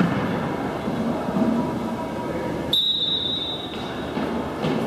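One steady, high umpire's whistle blast, about a second long, starting abruptly a little past the middle, over the noisy hubbub of a gymnasium.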